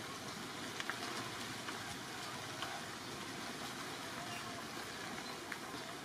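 Steady hiss of background noise, with a few faint clicks scattered through it.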